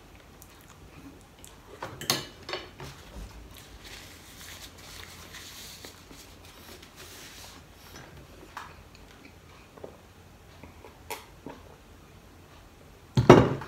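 Table eating sounds: a few clinks of a metal fork on a plate, a paper napkin rustling against the mouth, and a loud thud near the end.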